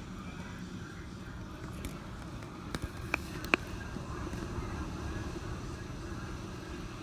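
Hurricane wind and rain as a steady rushing noise, heaviest in the low rumble, with a few sharp clicks about three seconds in.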